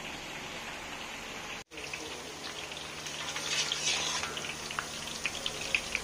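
Boondi, small drops of gram-flour batter, sizzling as they deep-fry in hot oil in a wok, with sharp crackles and pops that grow louder in the second half. The sound cuts out for an instant a little under two seconds in.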